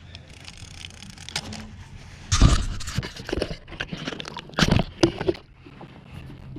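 Splashing and knocks at a kayak's side as a hooked smoothhound thrashes and is brought aboard: a run of sudden splashes and thumps, the loudest two about two and a half and four and a half seconds in.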